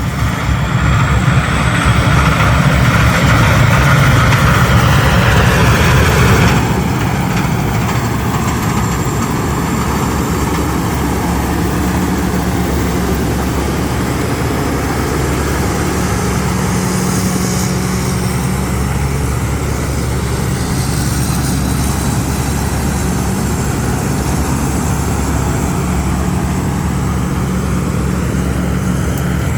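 Combine harvester engines running steadily under load. The sound is louder at first and drops abruptly about six and a half seconds in, then runs on at a steady level.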